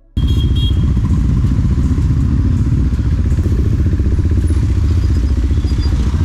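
KTM Duke 390's single-cylinder engine running steadily under way, with a fast, even, low pulsing that starts abruptly at a cut.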